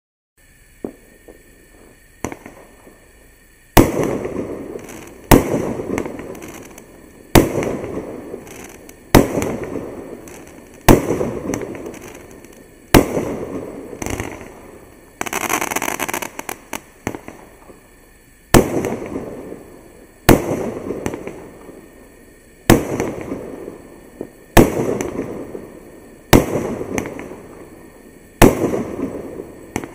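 A 28-shot consumer firework cake firing in sequence: a few small pops, then a loud bang about every two seconds, each shot's burst fading away over a second or so.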